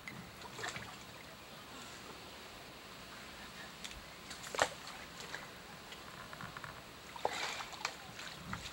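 Faint splashing and sloshing of water as a person wades in a shallow muddy creek and drags branches through it. There is a sharp crack about halfway through and a few short noisy splashes near the end.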